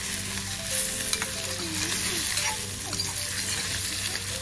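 Boiled potato chunks sizzling as they shallow-fry in hot oil in an iron kadai, with a steel spatula stirring them and scraping against the pan.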